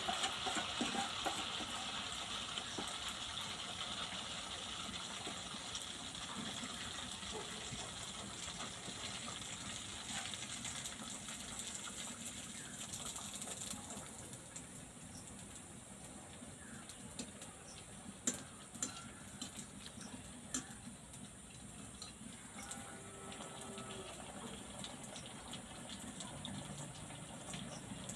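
Sugar-and-flour batter (chinir pitha) frying in hot oil in a steel wok: a steady sizzle that softens about halfway through, with a few sharp utensil clicks later on.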